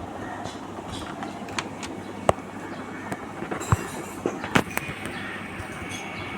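Scattered sharp clicks and light knocks of a laptop's case and tools being handled, over a steady low background hiss.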